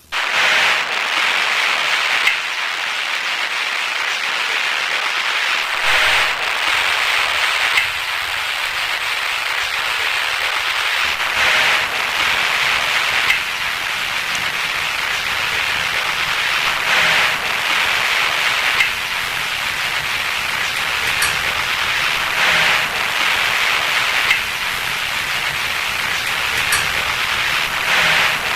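Loud static hiss, the noise of a stuck VHS tape effect, cutting in suddenly and swelling every few seconds with faint crackles.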